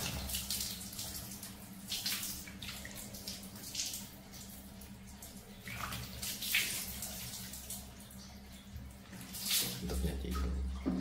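Water poured from a plastic dipper splashing over a small monkey's fur and the cushion under it, in several separate pours at irregular intervals, over a steady low hum.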